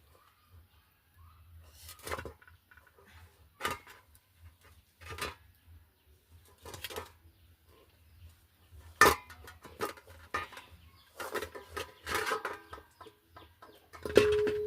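Knocks and clatter of cooking pots and utensils, about eight sharp strokes at uneven intervals; the last, near the end, is a struck metal pot that rings on for about a second.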